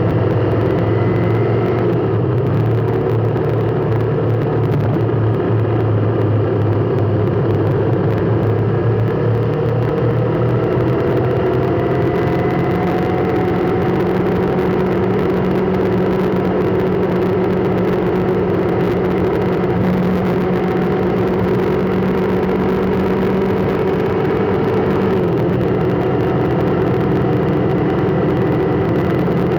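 Steady vehicle engine and road noise: a continuous low hum whose tones slowly drift up and down in pitch.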